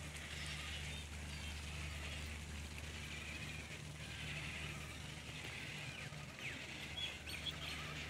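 Birds in an aviary chirping and twittering in a continuous high chatter, with a few sharper chirps in the second half, over a steady low hum.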